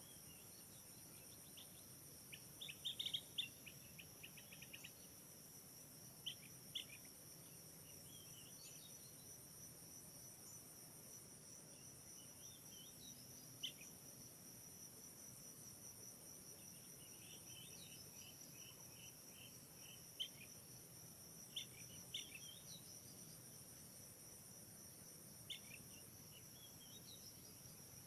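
Faint, steady high-pitched insect trilling, with short bird chirps breaking in now and then, a cluster of them about three seconds in.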